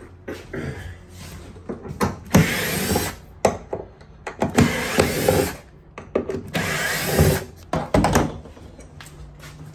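Cordless power drill running in several short bursts of about a second each, with knocks and clatter in between, backing out the screws that hold a fridge in place.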